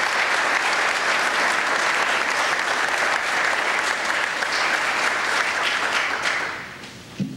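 Audience applauding, dying away about six and a half seconds in, followed by a short thump near the end.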